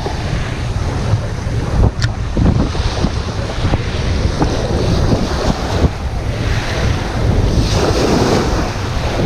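Strong onshore wind buffeting the microphone in a steady low rumble over surf breaking on the beach, with the surf swelling louder about eight seconds in.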